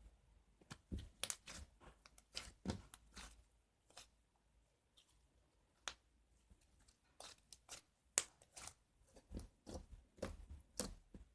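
Grape slime being handled, giving irregular short pops and crackles in quick clusters, with a sparser stretch in the middle.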